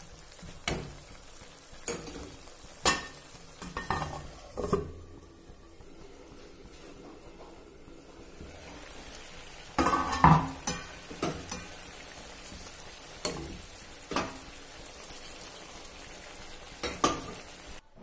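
Spinach and shrimp curry sizzling and bubbling in a wok while a spatula stirs it. The spatula knocks and scrapes against the pan at irregular intervals, most densely about ten seconds in.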